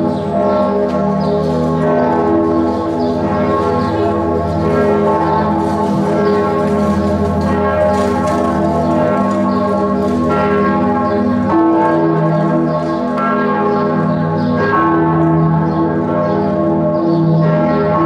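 Bern Minster's church bells pealing: several bells swinging together, their strikes landing irregularly every second or two over a continuous ringing hum of overlapping tones.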